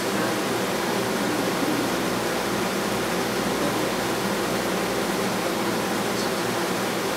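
Steady rushing water noise with an even low hum underneath: aquarium pump and water circulation, heard through a camera submerged in the tank.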